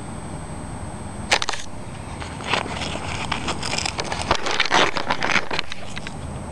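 Velcro on a scuba BC vest's alternate-air-source holder being peeled apart: a crackling tear lasting about three seconds, starting about two and a half seconds in, after a single sharp click about a second in.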